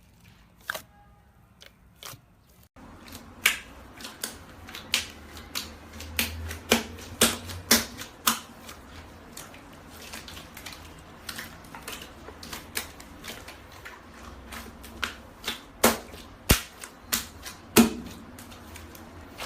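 Slime being pressed and squeezed by hand, giving sharp, irregular pops and crackles, several a second. Sparse clicks at first, then a denser run from about three seconds in.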